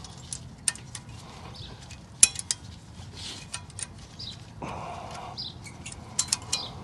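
Small metal clicks and clinks of brake pad abutment clips being fitted by hand into a disc brake caliper bracket, with a sharp click about two seconds in and a quick run of clicks near the end.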